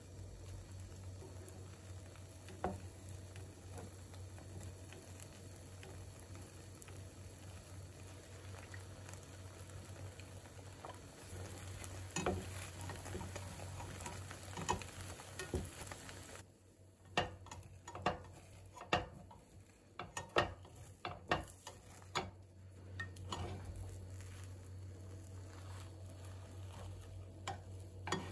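Food sizzling in a frying pan while it is stirred, with an occasional knock of the utensil. Just over halfway through, the sizzle stops suddenly and a run of sharp utensil clicks and taps follows.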